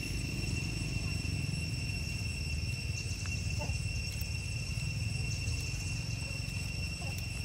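Steady high-pitched drone of insects over a constant low rumble, with a couple of faint short squeaks about halfway through and near the end.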